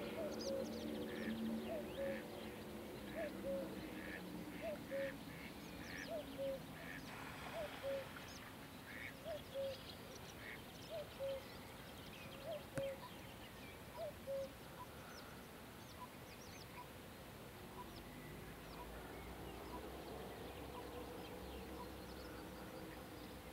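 A series of short, low animal calls, mostly in pairs, repeating about every second and a half and stopping about fifteen seconds in; after that only faint soft ticks continue.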